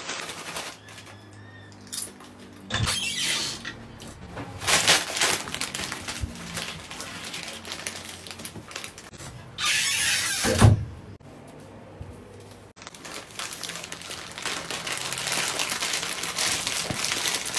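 Plastic chip bag crinkling and rustling under a blanket in several short bursts, with one louder burst ending in a thump about ten seconds in, then steady crinkling near the end.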